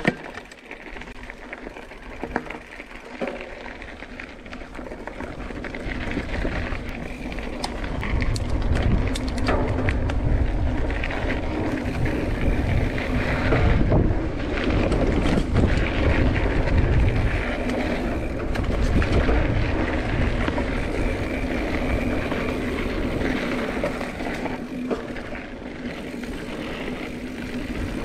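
Mountain bike ridden on a dirt singletrack: wind rumbling on the camera microphone with tyre noise and the rattle and clatter of the bike over bumps, louder from about eight seconds in.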